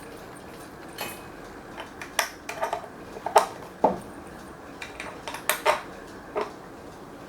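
Irregular light clicks and knocks of hard objects being handled, about a dozen, bunched in the middle of the stretch over a faint steady hiss.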